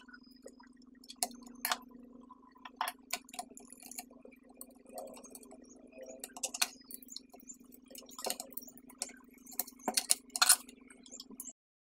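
Screwdriver and small screws clicking and clinking against the laptop's plastic base and the desk as the hard-drive bay is taken apart: irregular sharp clicks, a few louder ones, over a steady low hum. It all cuts off suddenly shortly before the end.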